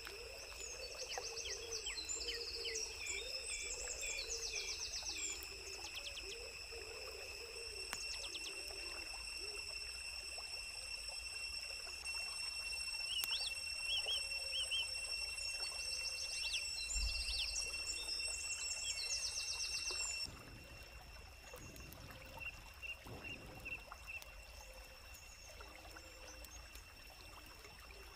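Birds chirping in short repeated bursts over a steady high-pitched whine. The whine cuts off abruptly about twenty seconds in and the sound gets quieter, leaving fainter chirps.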